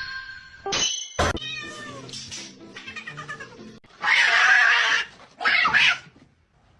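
Domestic cat meowing several times, with music heard alongside.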